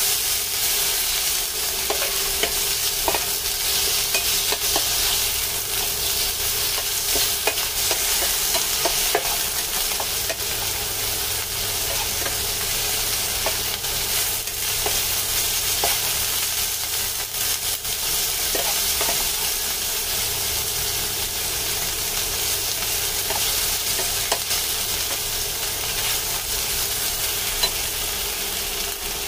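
Chicken pieces and garlic sizzling in hot oil in a nonstick frying pan, stirred and turned with a silicone spatula that scrapes and taps against the pan many times.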